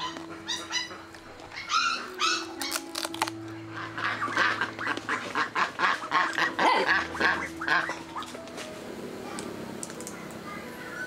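Repeated short animal calls over background music with held notes.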